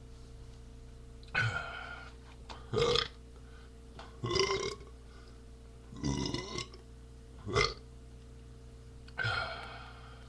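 A man burping six times in a row: a mix of short belches and longer, drawn-out ones. They are beer burps.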